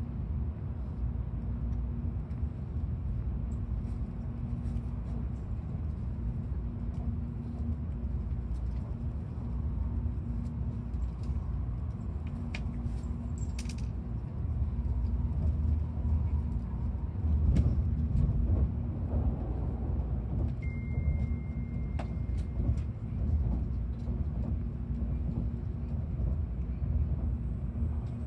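Tokaido Shinkansen train heard from inside the passenger cabin: a steady low running rumble with a constant hum, swelling slightly in the middle, with a few faint clicks.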